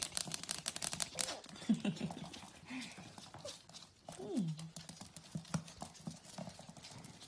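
Dachshund puppies play-fighting on a wooden floor: claws clicking and pattering, with a few short puppy growls and whines that fall in pitch.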